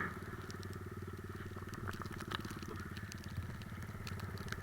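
Three-wheeler ATV engine running steadily, an even, rapid beat of firing pulses, with a few faint clicks over it.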